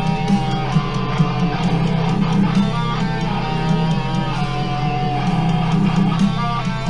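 Heavy metal band recording in an instrumental passage: distorted electric guitars play a held, shifting lead melody over a dense, driving low rhythm and bass.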